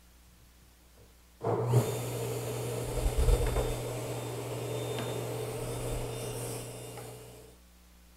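Table saw starting abruptly and running steadily while a groove is ripped along the edge of a board, dying away near the end.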